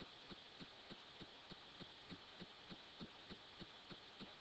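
Near silence: faint room tone with a soft, regular tick about three times a second.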